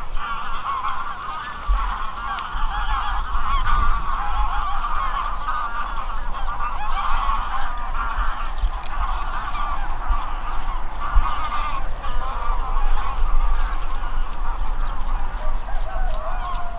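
A large flock of geese honking in a dense, continuous chorus of overlapping calls, with wind rumbling on the microphone.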